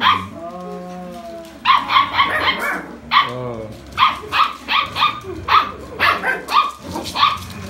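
Playing puppies barking and yipping in quick, high-pitched runs of several barks a second, coming in clusters.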